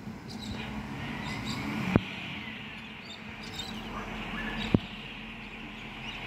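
Iveco Stralis garbage truck running some way off down the street, a steady low engine hum, with birds chirping. Two sharp knocks stand out, about two seconds in and again near the end.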